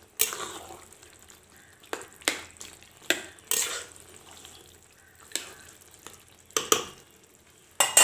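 A metal spatula stirring and scraping a thick taro-leaf and fish-head curry in a metal karahi, with sharp, irregular clinks against the pan about once a second over a faint sizzle. The stirring keeps the curry from catching on the bottom.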